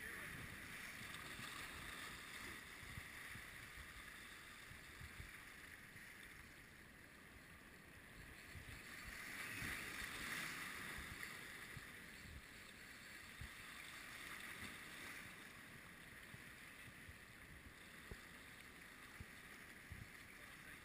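Faint outdoor ambience: a soft hiss that swells about halfway through and fades again, with scattered faint low bumps on the microphone.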